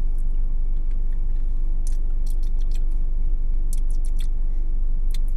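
Steady low hum of a car's engine running while parked, with a few short wet clicks of lips and mouth as chocolate spread is tasted off the fingers.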